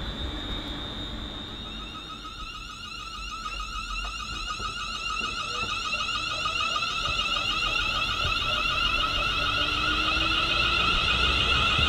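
A warbling, alarm-like tone in several pitches that grows steadily louder, over a low background rumble.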